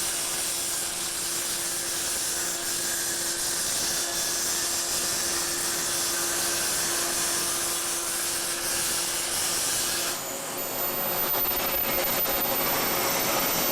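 Arc welding on an exhaust pipe: a steady crackling hiss. About ten seconds in its sound changes and a thin high whine appears.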